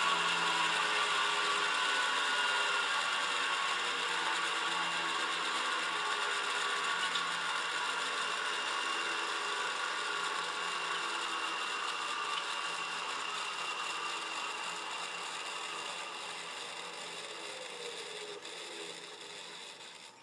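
Quantum 2040 8-inch hard drive's AC spindle motor and platters winding down, a multi-tone whine that slowly falls in pitch and fades. The platters coast freely because the drive's brake is not connected.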